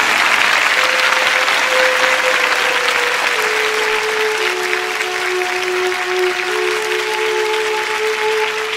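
Large audience applauding, over music holding long sustained notes that change pitch a few times; the whole eases slightly in level toward the end.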